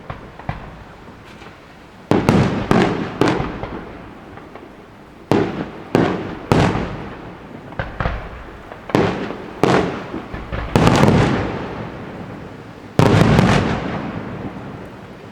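Fireworks display: about a dozen loud bangs of bursting shells, coming singly and in quick pairs and triples a second or two apart, each trailing off in a rolling echo.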